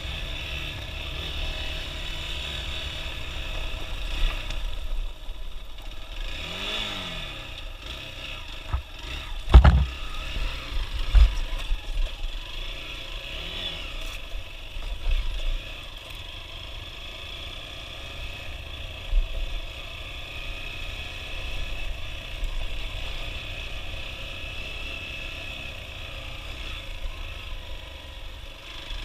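Hero XPulse 200's single-cylinder engine running while riding a rough trail, its revs rising and falling briefly twice, with sharp knocks and clatter from bumps about a third of the way in.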